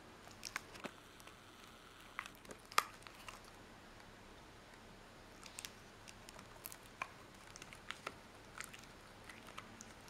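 Beagle gnawing a knotted rawhide chew bone: irregular sharp crunches and clicks of teeth on the hard rawhide, the loudest about three seconds in.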